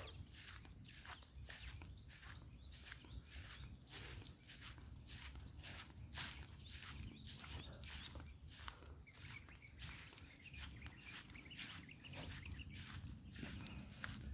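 Footsteps through forest undergrowth, about two to three steps a second, over a steady high-pitched insect drone.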